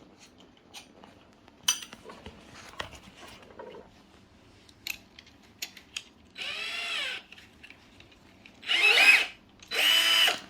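Cordless drill driver motor spun up in three short trigger pulls, each a brief whine that rises and falls in pitch; the later two are louder. Light clicks of the tool being handled come before them.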